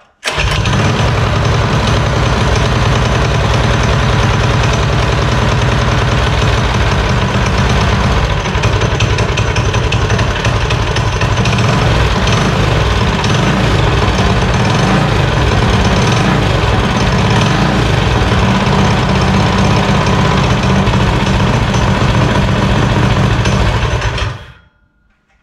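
Coleman CT200U minibike's single-cylinder engine catches right at the start and runs steadily and loudly for about 24 seconds. Near the end it dies away, stopped by pulling the spark plug wire because the kill switch won't shut it off.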